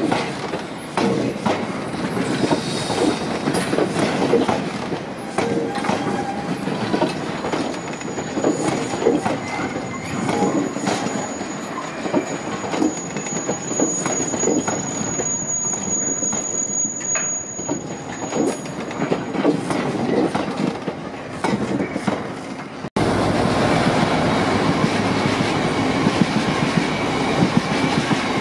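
Freight train tank wagons rolling past, their wheels clattering over rail joints, with a thin high wheel squeal held for about twelve seconds in the middle. About 23 seconds in, the sound cuts abruptly to a second train of tank wagons passing closer and louder.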